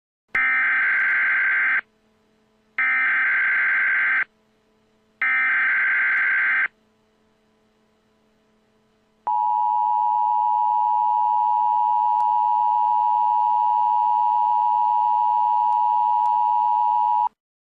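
Emergency Alert System tones: three short bursts of the SAME header data, each about a second and a half, then the two-tone attention signal held steady for about eight seconds, marking the start of a new alert message.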